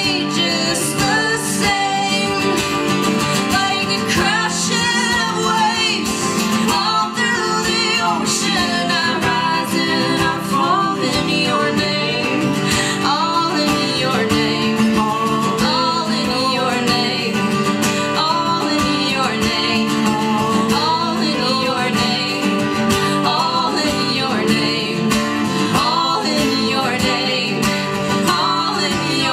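A woman singing a slow song live, accompanied by her own guitar.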